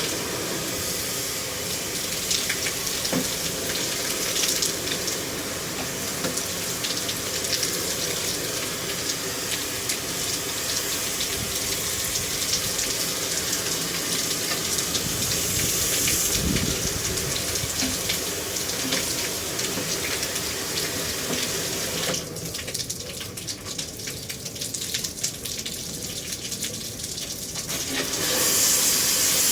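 Water running and spraying steadily while air-conditioner parts are rinsed. The sound thins for several seconds near the end, then turns into a louder, hissier spray.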